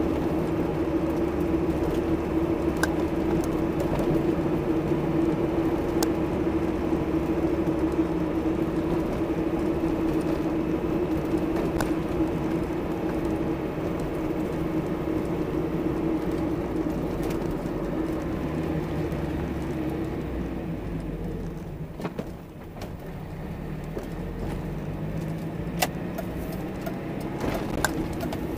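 1996 Mazda Miata's 1.8-litre four-cylinder engine and road noise heard from inside the cabin while driving: a steady drone. It dips briefly about three-quarters of the way through, and a couple of sharp clicks come near the end.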